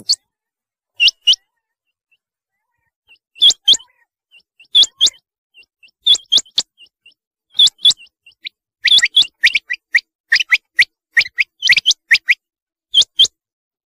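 Rain quail calling: sharp double notes repeated about every second and a half, with a quicker run of many notes from about nine seconds in to about twelve.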